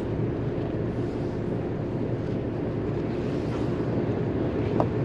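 Engines of a Carver 504 motor yacht running steadily underway, a low even hum, with wind noise on the microphone.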